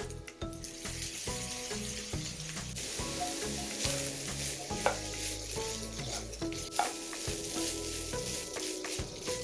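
Food sizzling as it fries in hot oil in a pan, growing louder about three seconds in, with a few sharp ticks, over background music.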